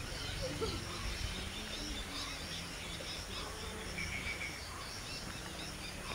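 Outdoor ambience of scattered small bird chirps and insects over a low steady rumble, with a short bird trill about four seconds in.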